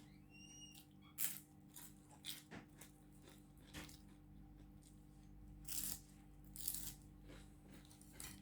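Crisp rugag flatbread crunching between the teeth, with a few sharp crunches about a second or two apart and chewing between them, over a steady low hum. A brief high squeak rises near the start.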